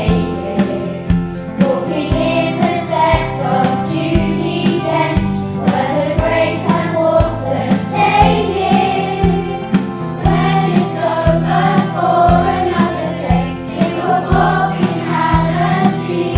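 A group of children singing a song together over a backing track with a steady beat of about two strokes a second.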